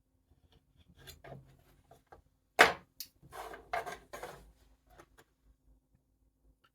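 A hand tool scraping on the planks of a small model wagon body, in a few short strokes. There is one sharp click or knock about halfway through, the loudest sound, then more rough scraping and a few light taps.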